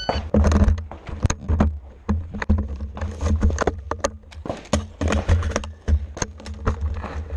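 A short electronic beep, like a shot timer's start signal, then AR-15 rifle fire: rapid, irregular shots at about three to four a second that keep going until the end.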